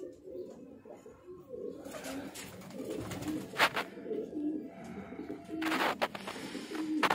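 Domestic racing pigeons cooing, low wavering coos repeated again and again, with a few short sharp noises among them.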